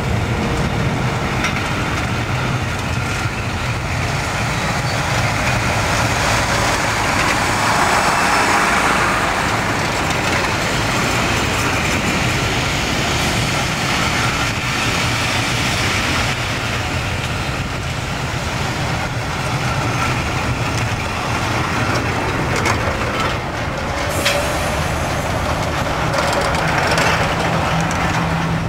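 Passenger train running along the line, heard from an open coach window: a steady rumble of wheels on the rails with air rushing past, and a few short sharp clicks about 24 seconds in.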